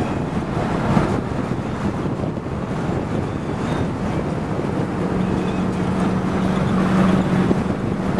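Wind and road noise inside a late-1950s Chrysler Forward Look car cruising at freeway speed, with a steady low hum coming in about five seconds in.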